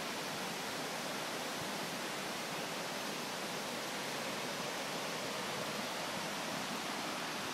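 A river rushing over rocks: a steady, even rush of water.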